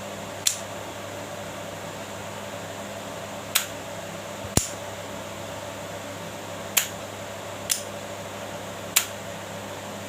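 Repaired magnetic contactor energized and quiet, no longer humming loudly; only a steady faint background hum is heard, broken by six short sharp clicks spread across the stretch.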